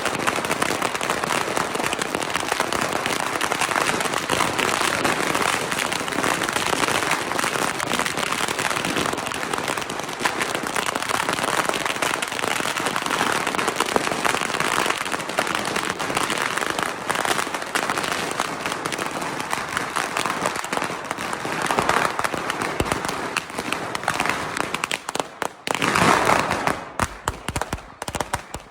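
Firecrackers going off in a rapid, continuous crackle of many small pops, with a louder burst about 26 seconds in, then thinning out into scattered separate pops near the end.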